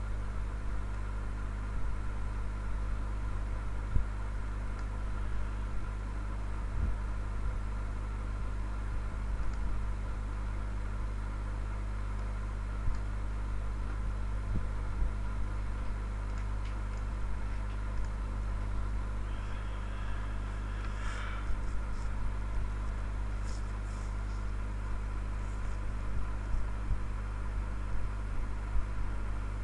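Steady low hum with a few faint mouse clicks scattered through it.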